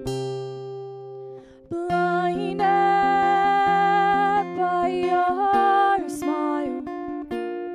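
Acoustic guitar being strummed in chords, with a woman singing long held notes over it from about two seconds in until about six seconds in.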